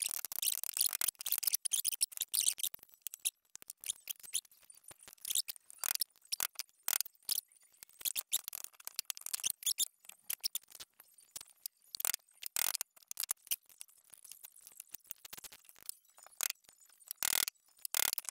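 Irregular light clicks, clinks and rattles of metal engine parts being handled on a workbench: a finned air-cooled cylinder, a piston ring compressor and an oil can. A duller knock comes near the end.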